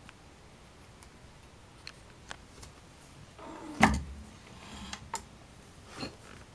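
Handling noise: a few light clicks and, about four seconds in, one louder knock with a short rustle.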